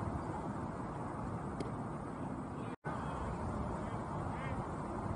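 Steady outdoor background noise at a ballfield, with one sharp click about a second and a half in and a short call-like blip near the end. The sound cuts out completely for an instant just past the middle.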